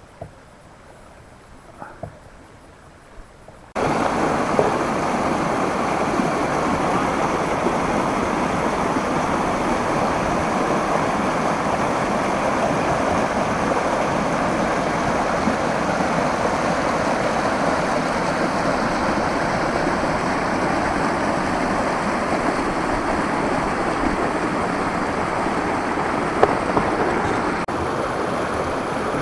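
Faint for about four seconds, then a sudden cut to the loud, steady rush of a mountain creek spilling over rock ledges and small cascades.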